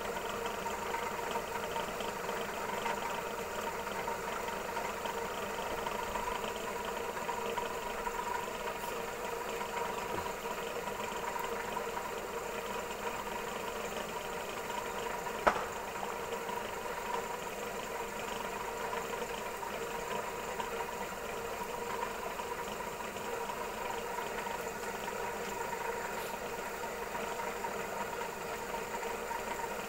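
Belt-driven warp-beaming machine running steadily as its beam winds yarn, a continuous mechanical hum with a steady whine. One sharp click about halfway through.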